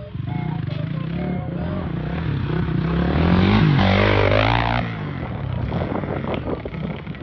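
Honda CRF450R dirt bike's single-cylinder four-stroke engine running, revved up and back down about midway, over background music.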